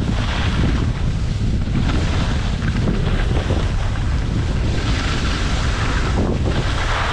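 Wind buffeting the microphone during a downhill ski run: a steady, loud low rumble, with a hiss that swells just after the start and again from about five seconds in.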